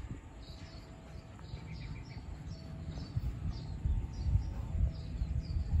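Small birds chirping in a short repeated call about twice a second, with a brief trill near the two-second mark, over a low, uneven rumble.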